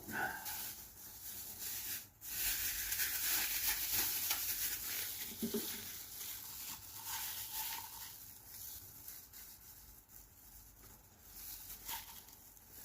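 Fibreglass matting soaked in resin being dabbed and pressed down by hand, giving an irregular wet rustling and tapping. It is busiest in the first half and tapers off later.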